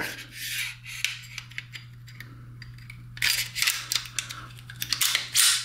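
Daniel Defense H9 9mm pistol being reassembled: the slide scrapes along the frame rails, with light scuffs and small clicks, then a run of sharp metallic clicks near the end as it seats. A faint steady hum underneath.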